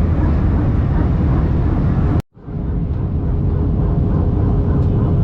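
Steady airliner cabin noise: the rumble and rush of the jet engines and airflow heard from inside the cabin. The sound cuts out for a split second about two seconds in, then resumes with a faint steady hum alongside.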